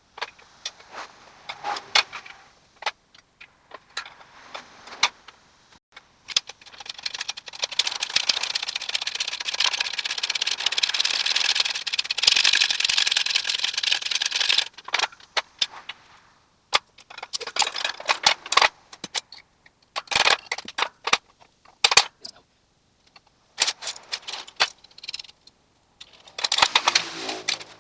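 Metal tools and parts clinking, knocking and rattling during hands-on work on a car's rear suspension parts, with a steady harsh rushing noise for about eight seconds in the middle.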